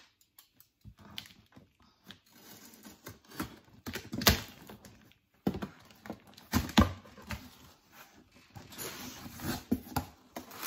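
Scissors cutting through packing tape on a cardboard box and the flaps being pulled open: scratchy scraping and rustling of tape and cardboard, with a few sharp clicks, the loudest about four and seven seconds in.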